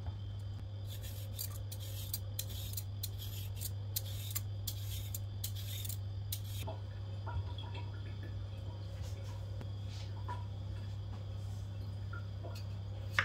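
Vegetable peeler scraping the skin off a raw potato in quick repeated strokes, about three a second, which stop about halfway through; after that come a few faint taps of a knife cutting the potato on a wooden board. A steady low hum runs underneath.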